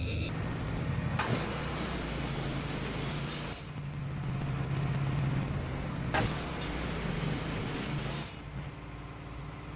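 Sawmill running with a steady engine hum, and two stretches of loud hissing noise of about two seconds each as it cuts cedar.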